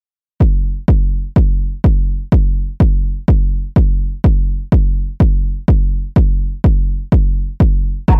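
House music intro: a solo electronic kick drum on every beat, about two beats a second, with a deep booming tail. It starts after about half a second of silence.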